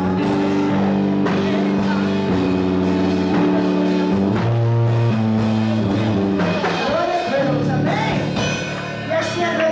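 Gospel worship music from a band, with held keyboard-like chords, drums and guitar, and a voice singing that is clearest near the end.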